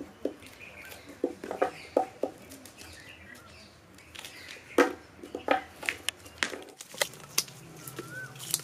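Irregular light taps and knocks of paper sheets and cardboard firecracker tubes being handled and pressed against a board as spinner casings are wrapped by hand.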